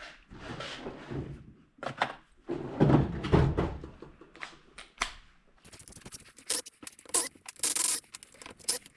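Tools and metal parts handled at a transmission: irregular thunks and scrapes, then about halfway through a quick run of sharp metallic clicks and clinks.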